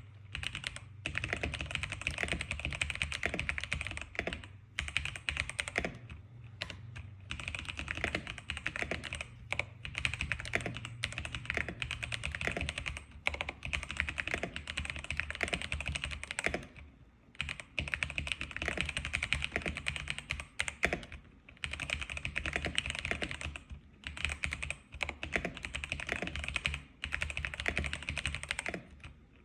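X87 keyboard being typed on: rapid, continuous keystrokes in runs of a few seconds, broken by brief pauses.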